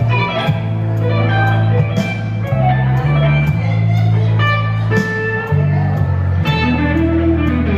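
Slow blues on electric guitar: bending lead lines over a low bass line and a steady beat.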